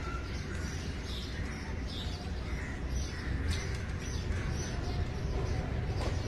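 Birds chirping and calling again and again, over a steady low rumble.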